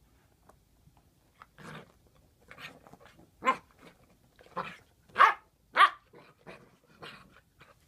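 A puppy barking in a string of short, high-pitched yaps. The loudest come in the middle, with fainter ones before and after.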